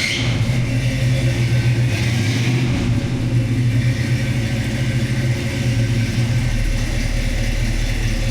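Car engine idling steadily with a low, even rumble, just after being started.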